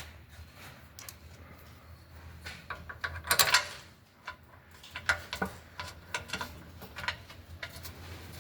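Scattered metallic clicks and clinks of hand tools and bolts as the stabilizer-bar bushing clamp bolts are started and tightened, with a louder brief scraping burst about three and a half seconds in.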